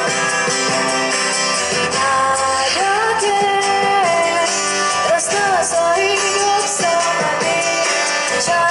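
Live band playing a pop song, with a woman singing the lead melody into a microphone over the band.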